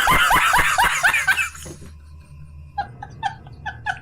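Laughter sound effects: a loud burst of rapid laughter, about five syllables a second, each dropping in pitch, that fades out about a second and a half in. After a short lull a second, quieter and higher-pitched laugh of short repeated syllables starts near three seconds.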